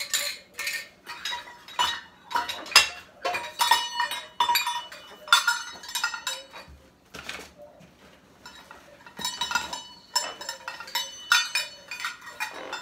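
Metal measuring cups on a ring clinking and rattling against each other as they are handled, in a run of irregular, ringing clinks.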